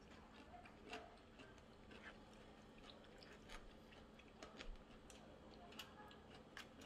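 Faint eating sounds: scattered, irregular clicks and taps of chopsticks against a plastic bento tray, with quiet chewing.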